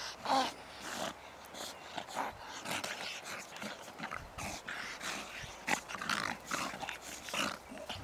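Two bulldog-type puppies play-fighting, making many short, irregular growls and snuffles as they wrestle and mouth at each other.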